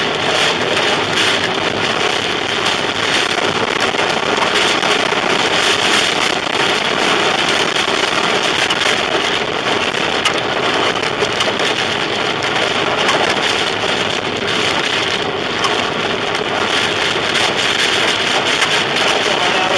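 Storm rain pelting a moving car, heard from inside the cabin: a loud, steady rush of driving and rain noise thick with many small sharp impacts on the body and windshield.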